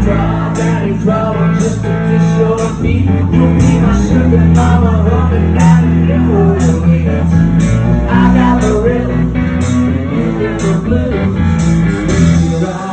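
Live band playing a country-rock song: male lead vocal over electric guitars and bass, with a steady beat.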